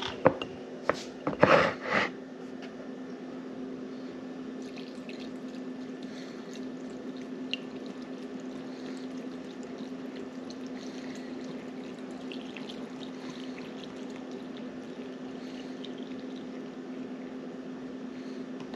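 White vinegar pouring steadily from a plastic jug into a glass mason jar packed with carrot sticks, after a few knocks at the start.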